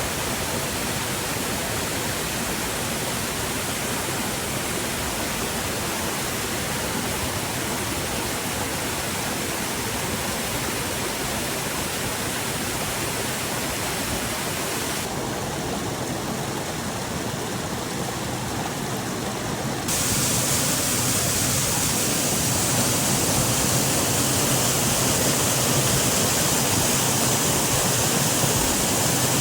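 Waterfall splashing and rushing steadily. About two-thirds of the way through, the rush turns louder and brighter.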